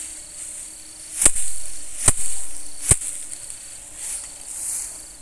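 Sheaves of harvested paddy beaten down by hand to thresh out the grain: three sharp thwacks about 0.8 s apart, each with a swish of straw, over a faint steady chirp of insects.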